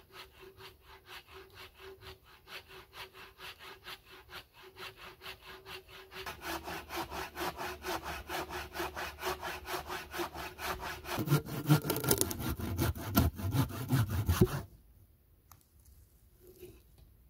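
Hand saw cutting through a log with quick, even back-and-forth strokes. The strokes grow louder partway through, then stop abruptly a few seconds before the end.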